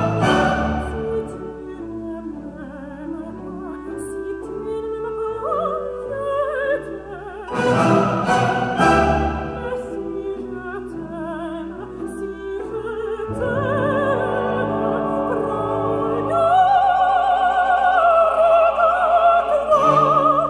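Recorded opera, a singer with orchestra, played over Klipsch loudspeakers driven by a 300B single-ended tube amplifier as one half of a bass-boost on/off comparison. The passage starts afresh about seven seconds in and again about thirteen seconds in. The voice, with wide vibrato, is loudest near the end.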